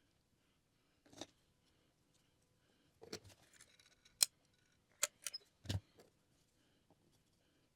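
A handful of light, sharp clicks and taps at irregular intervals, like small hard objects being handled and set down. The sharpest comes about four seconds in.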